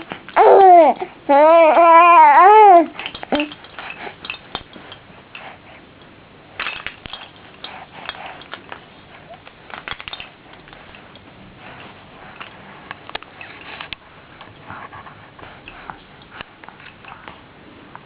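Baby cooing loudly in two wavering, sing-song calls during the first three seconds, then scattered light clicks and taps from toy rattles being struck.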